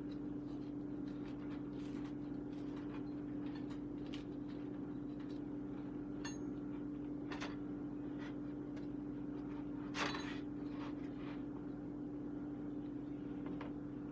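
Steady hum of a kitchen appliance with one strong pitched tone. Scattered light clicks and taps run over it, with one sharper click about ten seconds in.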